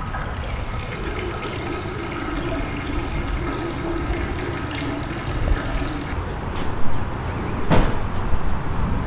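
Toilet flushing in a restroom, picked up close by a lavalier mic worn by the man inside, with a sharp knock near the end.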